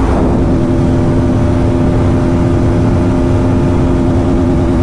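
Motorcycle engine running at steady high revs at speed, with heavy wind rush on a helmet-mounted microphone.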